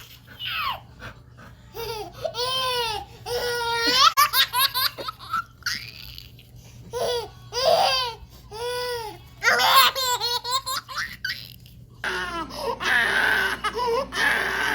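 A baby laughing in repeated bursts of high giggles with short pauses between them.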